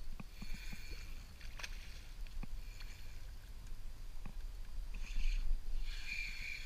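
A hooked redfish thrashing at the surface beside a small boat, splashing in several short bursts, with a few sharp knocks and a steady low rumble of wind on the microphone.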